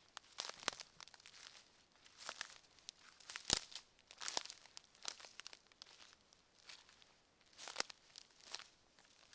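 Footsteps of a person walking along a forest path, each step a short crisp scuff on the ground litter, at an uneven walking pace. One sharper, louder step comes about three and a half seconds in.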